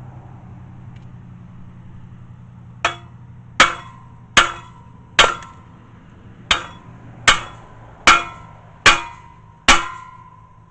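Hammer striking a metal bolt nine times, about three-quarters of a second apart, each blow leaving a short metallic ring.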